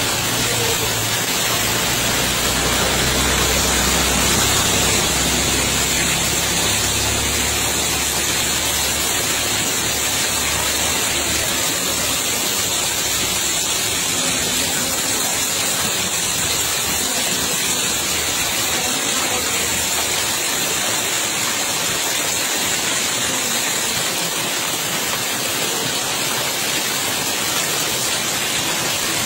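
Steady rush of water, a dense even hiss without breaks, with a low rumble under it for the first several seconds.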